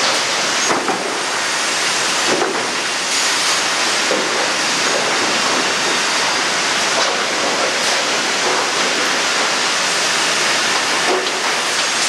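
Steady loud din of sawmill machinery and lumber conveyors running, with a few faint knocks, one about a second in, another about two and a half seconds in, and one near the end.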